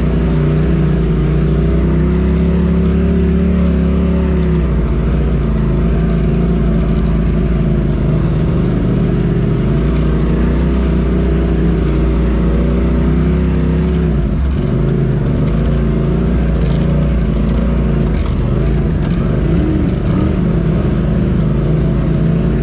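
Polaris RZR Turbo side-by-side's engine running steadily on the trail, its pitch wavering a little as the throttle changes.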